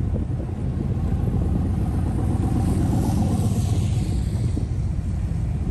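A Volkswagen Type 3's air-cooled flat-four runs at low speed, a steady low rumble heard from inside the car. A hiss, like tyres on wet pavement, swells and fades in the middle.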